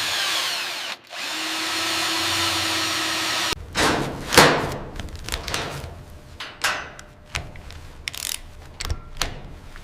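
A power tool, drill-like, runs in two long stretches with a short break about a second in; the second stretch carries a steady whine. From about halfway on it gives way to a string of irregular knocks and clicks that thin out toward the end.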